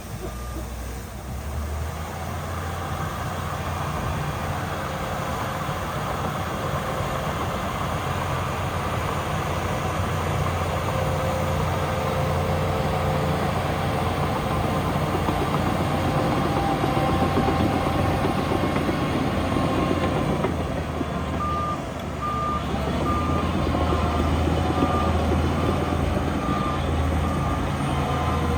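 Heavy diesel earthmoving machinery running steadily under load. In the last third a reversing alarm starts beeping at an even pace, a little faster than once a second.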